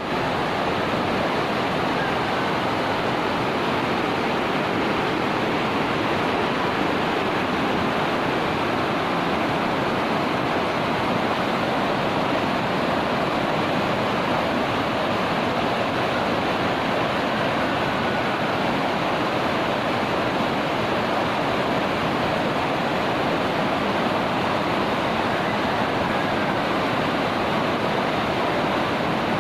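Swollen floodwater rushing down a river in a steady, unbroken rush of water.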